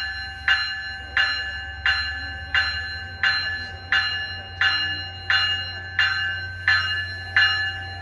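Warning bell of a GO Transit bi-level commuter train's cab car ringing steadily, about three strokes every two seconds, each stroke ringing on.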